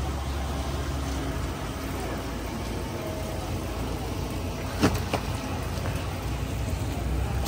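Steady low engine rumble, with two sharp knocks close together about five seconds in.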